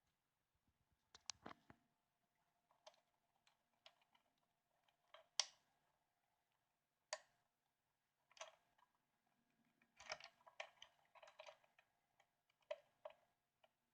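Faint, scattered small clicks and light handling noises, irregular taps and rustles with a small cluster about ten seconds in.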